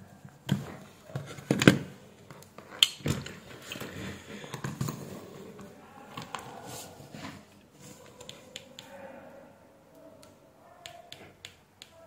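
Sharp plastic clicks and knocks as a small wire connector is worked off a circuit-board header with needle-nose pliers, loudest about one and a half seconds in. Quieter handling rustle follows, and a few light ticks come near the end.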